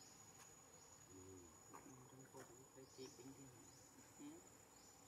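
Near silence with faint insect ambience: a steady high-pitched whine and short rising chirps repeating about once a second. Faint, distant voices are heard in the middle.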